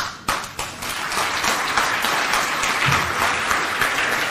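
Audience applause breaking out all at once: a few separate claps first, swelling within about a second into steady clapping from many hands.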